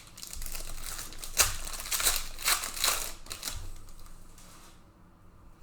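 Panini Prizm trading cards being handled: a rapid run of clicks and rustles as the cards are flipped through and slid against each other. It trails off about four and a half seconds in.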